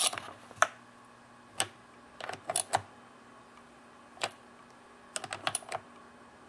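Sharp metal clicks and taps, some single and some in quick clusters, from a socket tool tightening the two 8 mm nuts that hold the carburetor on a Stihl MS260 chainsaw.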